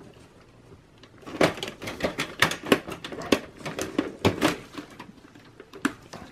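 A quick run of sharp plastic and metal clicks and knocks starting about a second in, with one or two more near the end: cable connectors being pulled off an optical drive and the drive shifted and lifted in its metal bay inside a desktop computer case.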